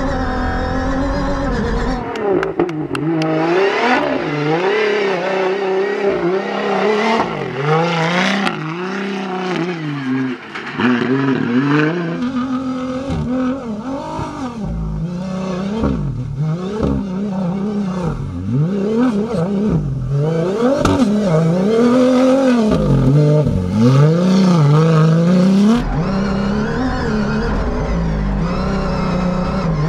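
Toyota Hilux desert rally car's engine revving hard, its note rising and falling again and again as the driver accelerates, lifts and shifts over the dunes. The sound changes abruptly about 2, 12 and 26 seconds in.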